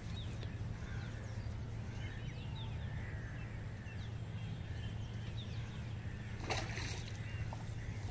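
Quiet outdoor background: small birds chirping in many short high calls over a steady low hum, with a brief noise about six and a half seconds in.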